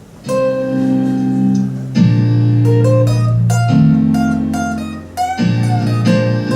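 Instrumental intro of a live song: held chords with a melody line over them. It starts just after the beginning and the chords change about every second and a half.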